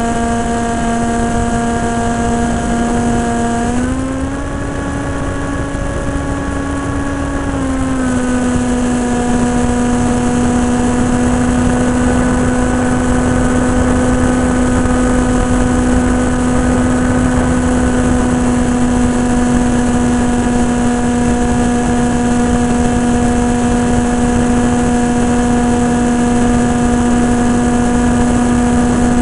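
Electric motor and propeller of an AXN Floater Jet RC foam plane whining steadily, heard from the camera on board, over a rush of wind. The pitch rises a little about four seconds in and settles back down about four seconds later.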